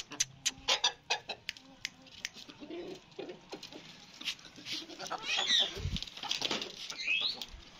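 Naked-neck Aseel rooster pecking at feed on a concrete floor: a quick run of sharp taps, then two short chicken calls that glide in pitch in the second half, with a dull thump between them.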